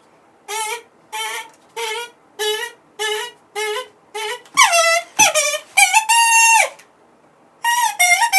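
Plastic kazoo playing a short tune. Six short, even notes are followed by louder notes that slide in pitch and one long held note. After a pause of about a second, more notes start near the end.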